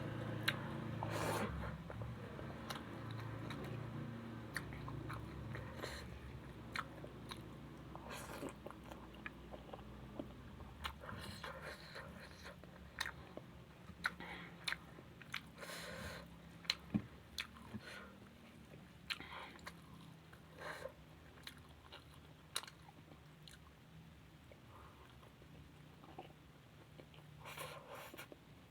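A person chewing and biting food, with irregular wet mouth clicks and small crunches, growing quieter toward the end.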